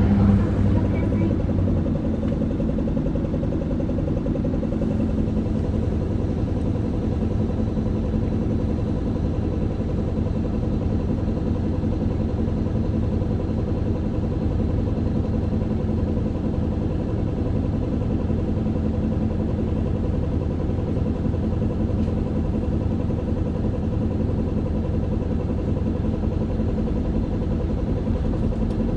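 Isuzu Erga city bus's four-cylinder turbo-diesel engine running steadily, heard from inside the passenger cabin as a low, even drone with a little clatter.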